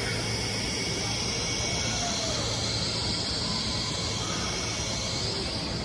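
Steady hiss with a low hum: the background noise of a large indoor hall.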